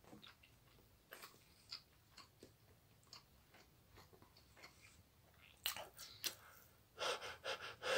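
Faint chewing of a mouthful of soft sandwich, mascarpone on plain untoasted bread, with small wet mouth clicks. Near the end come several quick, heavy breaths.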